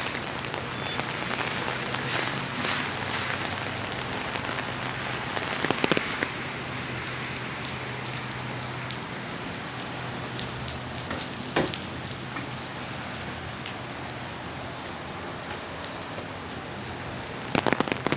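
Pouring rain falling steadily on the street, with scattered sharper drops ticking close by and a faint low hum underneath.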